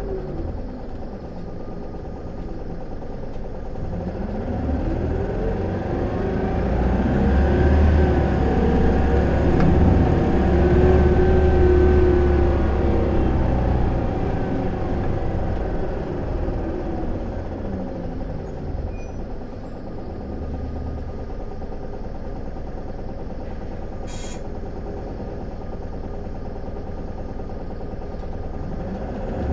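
Isuzu Erga city bus's four-cylinder turbo diesel heard from inside the cabin, pulling away in the low gears: the engine note climbs in pitch and loudness for several seconds, then falls back and settles. This bus is known for an odd vacuum-cleaner-like noise. A single short click comes near the end.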